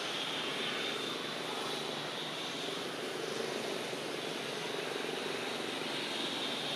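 Steady engine drone in the background, with an even high hiss above it and no sudden sounds.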